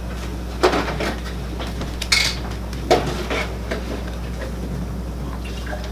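Off-camera kitchen clatter: a few scattered knocks and clinks of dishes or containers being handled, over a steady low hum.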